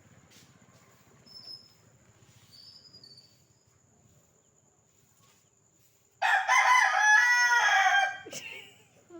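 Rooster crowing once, a loud cock-a-doodle-doo of about two seconds starting about six seconds in.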